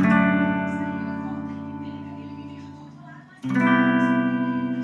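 Harley Benton Les Paul-style electric guitar playing two strummed chords: one struck at the start and left to ring down, a second struck about three and a half seconds in and still ringing.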